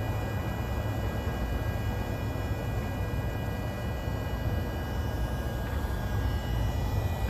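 Steady low rumble and hiss of background noise, with a few faint steady high tones above it.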